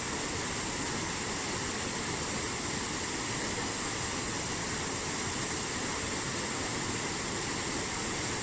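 Steady rush of a waterfall's falling water, with a steady high-pitched hiss above it.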